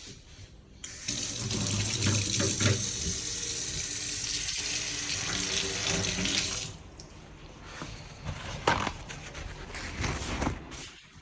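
Water running steadily for about six seconds, starting about a second in and then cut off, followed by a few light knocks.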